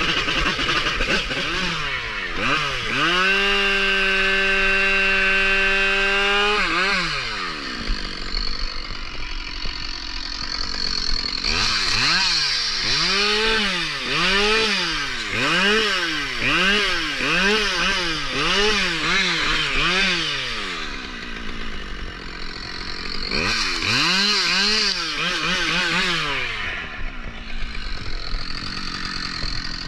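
Two-stroke chainsaw revved up to full throttle and held there for about three seconds, then dropping back to idle. It is then blipped repeatedly, about once a second, and gets another short series of blips near the end.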